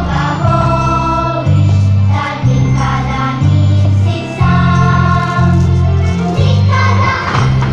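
Christmas song with choir-like singing over a steady bass line that changes note about once a second, played for a children's dance.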